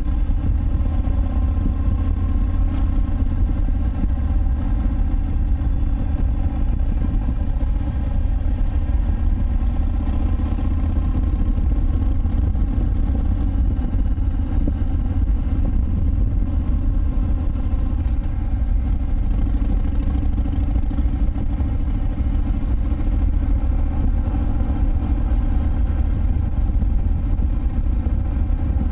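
Harley-Davidson Breakout 114's Milwaukee-Eight V-twin running through a Vance & Hines Big Radius exhaust, cruising at a steady, even throttle with no large revs.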